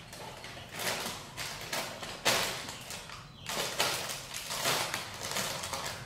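Plastic snack packet crinkling and rustling as a dog chews and paws at it, in irregular bursts, the sharpest about two seconds in.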